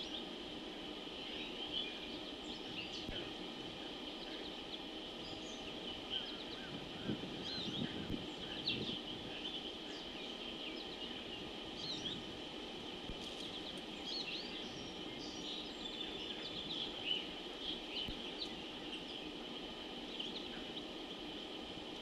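Outdoor pond ambience from a live wildlife-cam microphone: scattered short bird chirps and calls over a steady high-pitched background hum, with a brief low rumble about seven to nine seconds in.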